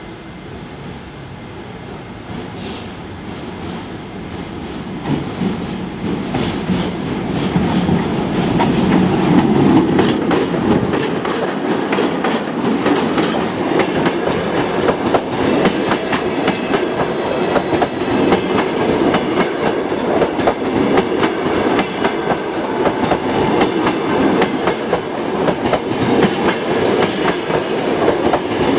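2ES4K electric locomotive hauling a passenger train as it draws near and rolls past, growing louder over the first ten seconds. After that comes steady wheel clatter over the rail joints as the carriages go by.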